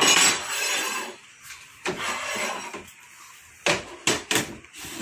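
Metal scraping and clinking as hand tools and aluminium door-frame pieces are handled on a workbench: a scrape lasting about a second at the start, another around two seconds in, then a few sharp knocks near the end.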